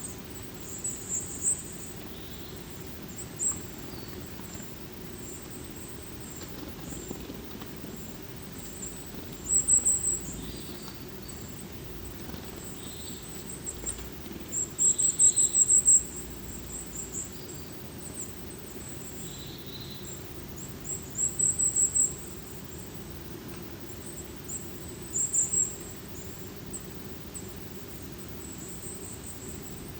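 Forest ambience of small birds, mainly tits, giving short series of very high, thin calls several times, over a steady low rush of the forest.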